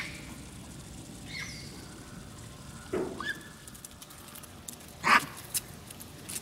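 A few short, separate animal calls from Japanese macaques and crows, the loudest a sharp call about five seconds in.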